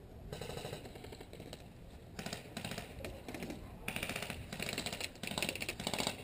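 Airsoft guns firing in several short full-auto bursts, each a rapid rattle of closely spaced shots, with brief gaps between bursts.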